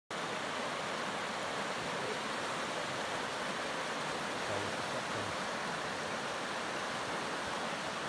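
Shallow, fast-flowing rocky creek rushing steadily over stones.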